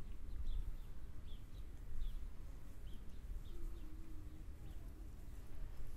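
Small birds chirping: short high notes repeating every half second or so, over a steady low rumble.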